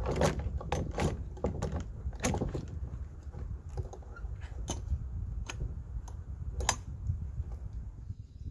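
Irregular clicks, clunks and rattles of a Stihl chainsaw being handled and fitted into a wooden trailer-mounted chop-saw frame, with the saw not running.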